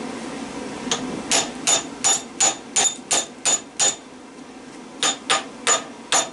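A hammer striking a steel punch (a flattened railroad spike) to drive the copper windings out of a microwave oven transformer core. There is a run of about nine sharp metal-on-metal blows at roughly three a second, a pause of about a second, then four more. Each blow rings briefly and high.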